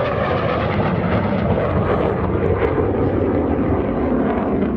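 MiG-17 jet fighter's VK-1F turbojet running in afterburner as the jet climbs away, a steady loud jet noise whose high hiss thins a little after a couple of seconds.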